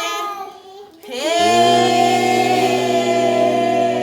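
Outro music with singing: a sung phrase trails off, then about a second in a long note slides up and is held as a steady chord for about three seconds.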